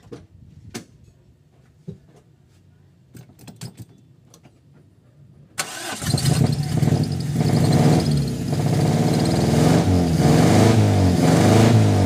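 Toyota 4A-F 1.6-litre four-cylinder engine turned over on the starter with a compression gauge fitted to one cylinder, starting suddenly about five and a half seconds in and running loud for the rest. A few faint clicks come before it. The gauge holds at about 100 psi without rising: low compression in that cylinder, which the mechanic takes for the source of the problem.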